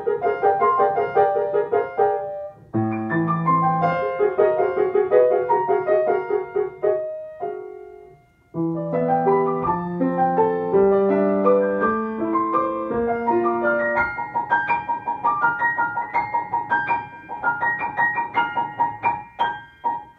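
Solo grand piano playing a lively Ecuadorian aire típico, with melody over chords. It breaks off briefly twice in the first half, and in the last third a high note is struck rapidly over and over before the music dies away near the end.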